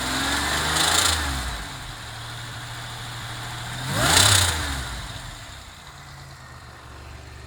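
Supercharged GM 3800 Series III V6 with a hot cam, blipped twice from idle, about a second and about four seconds in, each time dropping back to idle. At the top of each rev a high-pitched clattering noise comes in, the valvetrain noise that the owner suspects is a lifter collapsing at higher RPM.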